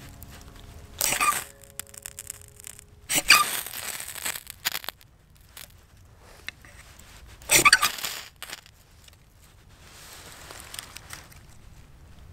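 Ferrocerium rod scraped hard with a steel knife three times, each stroke a rasping scrape, throwing sparks into a pile of wood shavings until they catch.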